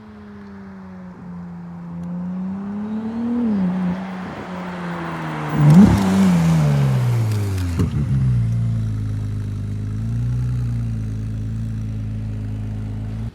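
Ferrari 296 GTB's twin-turbo V6 running: the engine note rises, climbs sharply to its loudest about six seconds in, falls away over the next two seconds, then settles into a steady low idle.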